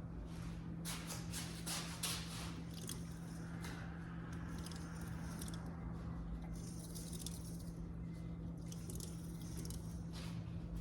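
Faint scattered clicks and light rattling of metal parts being handled, over a steady low hum.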